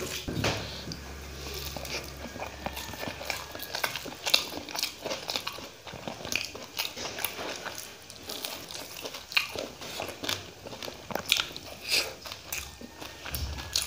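Close-up eating sounds of fried fish and rice eaten by hand: chewing and crunching, with many irregular crisp clicks, and fingers working the food on the plate.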